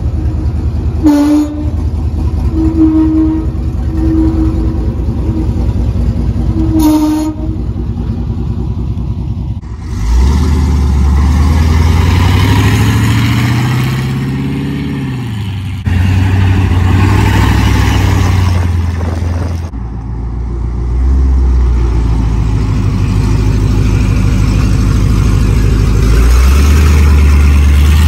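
LS-swapped V8 in a squarebody GMC pickup, first idling steadily, then running louder as the truck drives off, with one rise and fall in pitch as it accelerates and eases off. The truck has no finished exhaust system yet.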